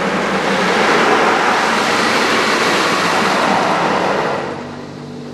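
Car-wash water jets spraying hard on the car's windshield and body, heard from inside the cabin as a steady rushing noise that dies down about four seconds in.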